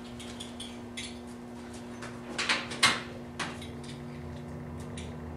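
Light metallic clinks and scrapes of a copper standing-seam roof panel being handled into place and its stainless steel clips being fitted, with a louder clatter of metal about two and a half seconds in. A steady low hum runs underneath, and a deeper hum joins about three and a half seconds in.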